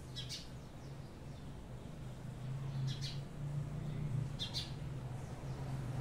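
Alexandrine parakeet preening its wet feathers, making four brief, faint high-pitched sounds: one near the start, one about three seconds in and a quick pair about a second later. A low steady hum runs underneath.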